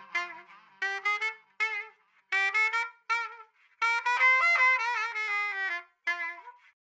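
Background music: a single melody line played in short notes and phrases, with brief silent gaps between them.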